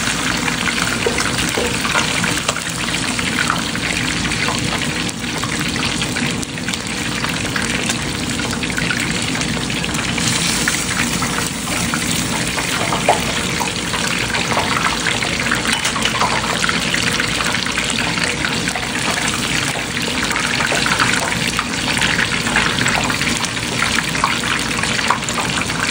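Hot oil sizzling and bubbling steadily around a whole red snapper deep-frying in a pan.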